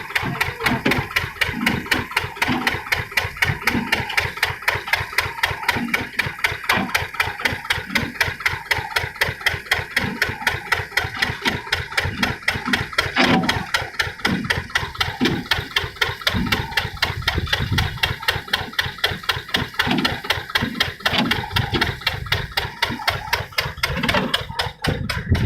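Soil washing machine running with an even mechanical knock, about four to five knocks a second.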